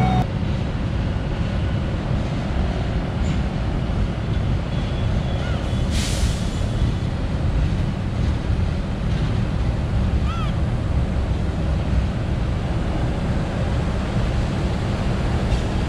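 Diesel locomotive running as it moves slowly along the platform to couple onto the passenger carriages: a steady low rumble, partly wind on the microphone. There is a short hiss about six seconds in and a brief high chirp around ten seconds.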